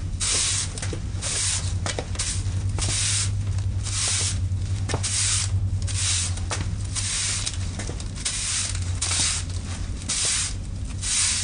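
A broom sweeping a floor: a steady run of swishing strokes, about one a second, over a low steady hum.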